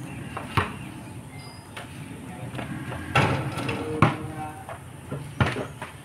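Four sharp knocks at irregular intervals, about half a second, three, four and five and a half seconds in.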